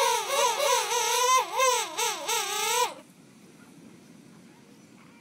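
King penguin trumpeting: one long call with a rapidly wavering, warbling pitch that stops abruptly about three seconds in, followed by faint background.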